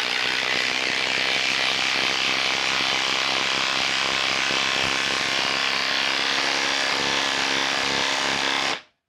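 Bosch Freak impact driver hammering a 4-inch lag screw into a wooden stump through a socket on its half-inch anvil. It runs steadily for about nine seconds and cuts off suddenly near the end as the lag is driven home.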